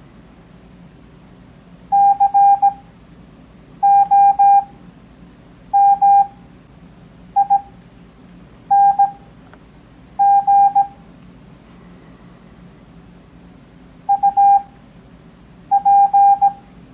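Morse code (CW) practice tone: one steady beep keyed into dots and dashes, sent Farnsworth-style with 17 wpm characters at an overall 6 wpm, so each letter stands alone with gaps of a second or more. Eight letters sound, with a longer word pause about two-thirds of the way through.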